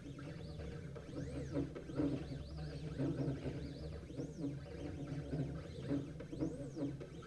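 Stepper motors of a 3018 PRO CNC driving the laser head along an engraving path, whining in pitch arcs that rise and fall as the axes speed up and slow down, over a steady low hum.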